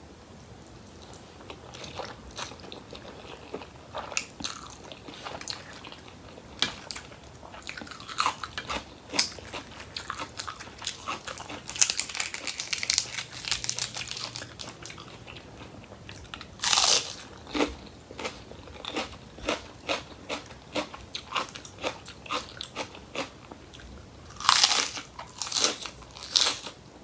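Close-miked eating: repeated crunchy bites and chewing of crisp raw vegetables, with the loudest crunching bursts about halfway through and again near the end.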